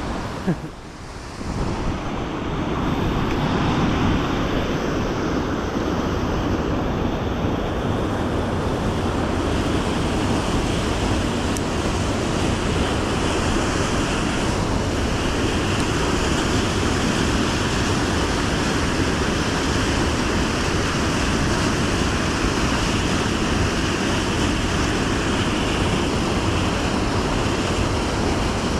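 River water rushing steadily over rocks. It dips briefly with a short knock about a second in, grows louder over the next few seconds, then holds even.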